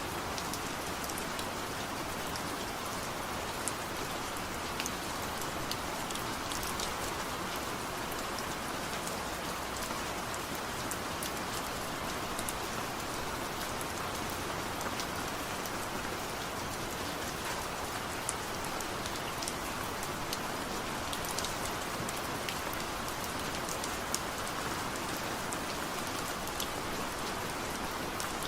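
Steady rain falling on a surface, an even hiss with many small scattered drop ticks, no thunder.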